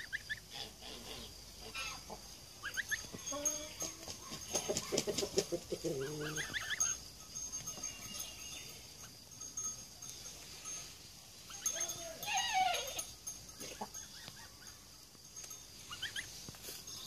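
Brahma chickens clucking and chirping as they forage, in short scattered calls, with a louder drawn-out call about twelve seconds in. A faint steady high-pitched hum runs underneath.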